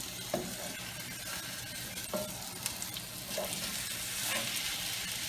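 Flour-coated T-bone steak sizzling in hot oil in a skillet as it is laid flat and pressed down to sear. The sizzle grows a little louder about four seconds in.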